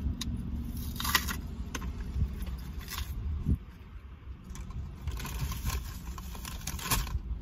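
A small item's packaging being opened by hand: scattered crinkles, rustles and sharp clicks, thickest near the end.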